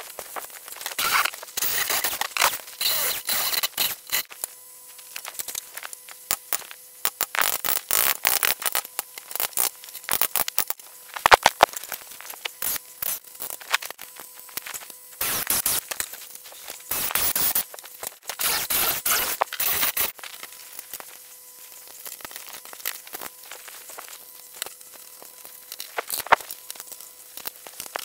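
Irregular scraping, clicking and knocking of hand work on a door: tools and metal lock parts being handled and pressed into place while a keyless door lock is fitted. A faint steady hum runs underneath.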